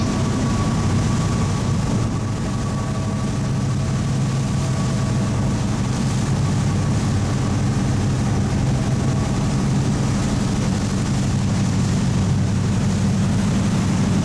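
A passenger ferry's engine running steadily with a low, even drone, mixed with the rush of water churning in the wake behind the boat.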